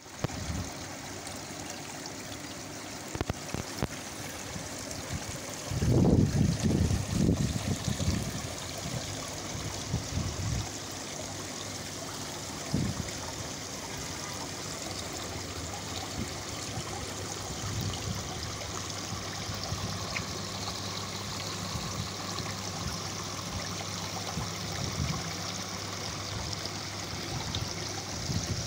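Several garden water features running together: water trickling and splashing steadily from cascading bowls and spouts into their basins. Low rumbles break in about six to eight seconds in and again briefly near ten seconds.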